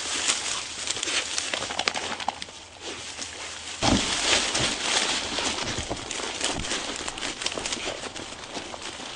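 Rustling and crackling in dry field vegetation, with many small irregular clicks; a low rumble joins about four seconds in.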